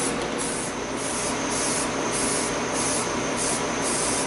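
Aerosol can of primer hissing in short, repeated bursts, about two a second, as the steel hitch frame is sprayed.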